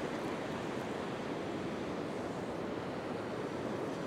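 Ocean surf breaking and washing up a sandy beach, a steady rush of waves.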